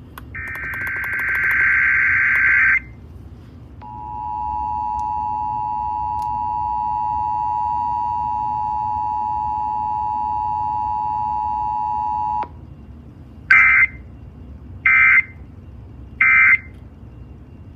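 Emergency Alert System tones: a harsh buzzing digital header burst lasting about two and a half seconds, then the steady two-tone EAS attention signal held for about eight seconds before cutting off sharply, then three short buzzing data bursts about a second and a half apart.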